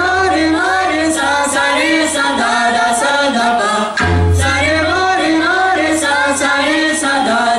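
Several young tabla players' voices singing a melodic line together in unison, with a few tabla strokes and a deep ringing bass-drum (bayan) stroke about four seconds in.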